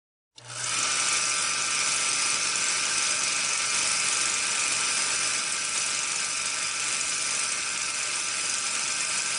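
Film projector sound effect: a steady mechanical whirring rattle that starts just under half a second in.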